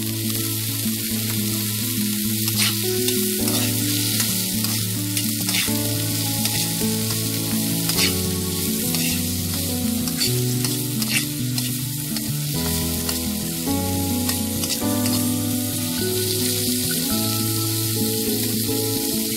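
Food sizzling as it is stir-fried in oil in a pan, with short scrapes or taps of the stirring utensil now and then, under background music.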